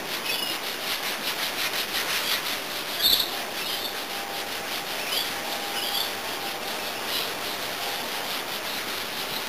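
Two people hand-sanding a resin-coated plywood kayak hull: steady scratchy rubbing of many quick back-and-forth strokes. This is the final sand of the cured resin before the white undercoat.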